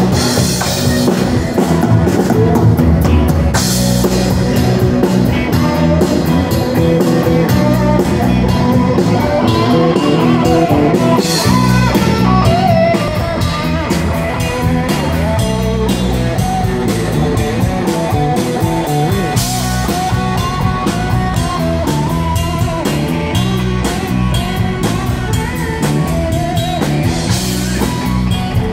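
Live rock band playing an instrumental passage: electric guitars over a steady drum-kit beat, with cymbal crashes several times.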